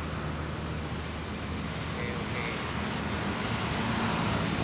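Road traffic going by: a car and motorbikes passing on the road, the engine and tyre noise growing louder near the end.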